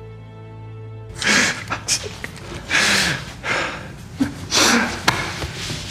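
A held orchestral soundtrack chord cuts off about a second in. Then come loud, ragged gasping breaths, about one a second, with a sharp click near the end.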